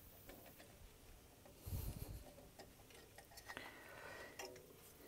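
Faint clicks and light handling knocks as hands work a retaining clip loose from a copper refrigerant line, with a soft low bump about two seconds in.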